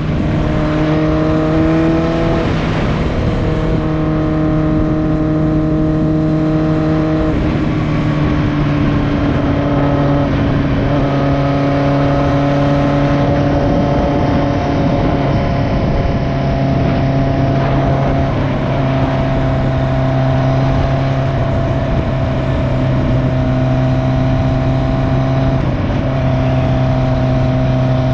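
Motorcycle engine running under way with heavy wind rush on the microphone, its pitch stepping up and down several times as the throttle and gears change. The bike has an exhaust leak.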